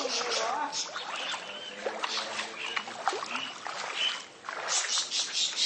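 Splashing and sloshing of shallow floodwater as people wade through it, with quick swishing splashes near the start and again about five seconds in.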